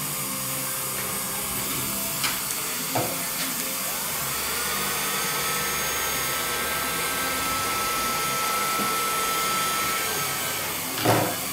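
Dental suction at the chairside hissing steadily while braces are bonded, with a few short clicks and a thin tone that rises about four seconds in and then holds steady.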